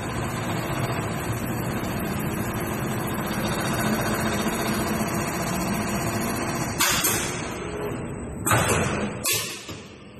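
JYL-G3020R computerized pattern sewing machine, driven by a 750 W direct-drive servo motor, running steadily as it sews, for about seven seconds. Near the end there are three short bursts of hiss.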